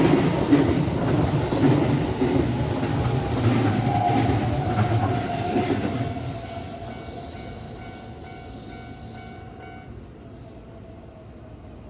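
A Keihan Main Line train passing over a level crossing: rumble and wheel clatter over the rail joints, dying away about six seconds in. The crossing's warning bell is then heard ringing in a rapid repeating pattern.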